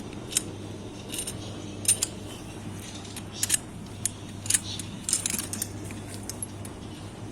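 Metal tools and small parts clinking and tapping in short, irregular clicks, over a steady low hum.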